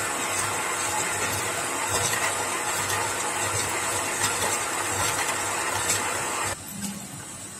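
Homemade electric Krot cultivator working under load: its belt-driven electric motor hums steadily while the Tselina tiller tines churn dry, stony soil, with scattered small knocks. About six and a half seconds in the sound drops suddenly to a quieter level.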